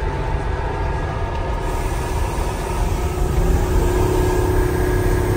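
Heavy truck's engine running as it drives down a gravel road, heard from inside the cab with tyre and road noise. It grows a little louder about halfway through, and a steady hum comes in.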